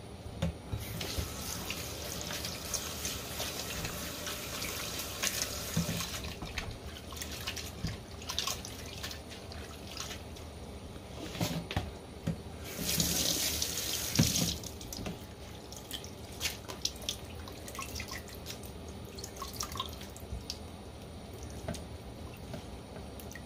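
Kitchen tap running into a stainless-steel sink while soaked white fungus is rinsed in a plastic colander. The water runs in two spells, about a second in for some five seconds and again near the middle for under two seconds. Between them come small splashes, drips and knocks.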